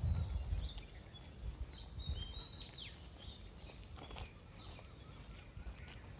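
Forest birds chirping and calling: many short high notes, some held briefly and some quick falling chirps, over a steady low rumble.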